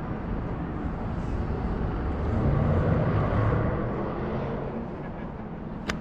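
Steady outdoor city noise heard from a high rooftop: distant traffic hum and rumbling wind, swelling louder around the middle. A single sharp click comes just before the end.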